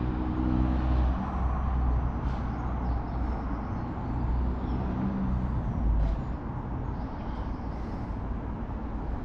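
Outdoor road traffic: a steady rumble of passing vehicles, with an engine hum swelling near the start and again about five seconds in.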